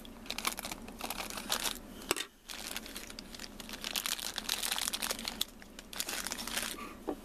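Thin clear plastic bag crinkling and rustling as small plastic toy pieces are handled inside it and taken out, with a brief pause a little past two seconds in.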